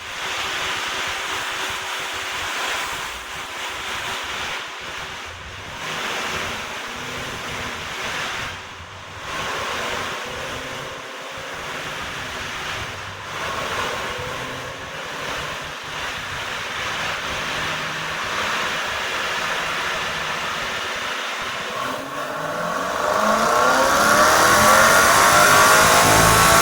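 Camaro's 6.2-litre LS3 V8 with a JRE 470 rough-idle blower cam on a chassis dyno. For about twenty seconds it runs choppy and uneven at low revs under a steady rushing noise. Then it pulls hard, its pitch climbing steadily as it gets much louder.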